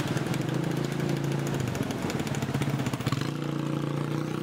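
A small engine running steadily at an even speed, giving a constant low hum.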